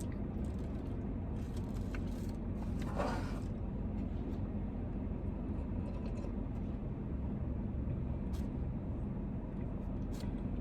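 Steady low rumble, with a few faint clicks and a brief soft rustling noise about three seconds in.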